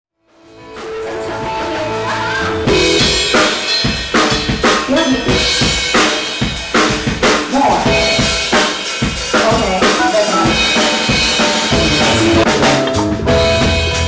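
A band playing music, led by a drum kit with snare and bass drum hits in a steady beat over sustained chords. The music fades in, and the drums come in loudly about three seconds in.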